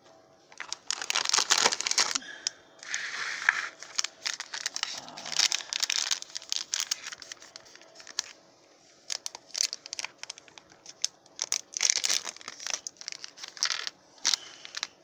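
Foil blind-bag wrapper crinkling and tearing in irregular bursts as it is handled and ripped open.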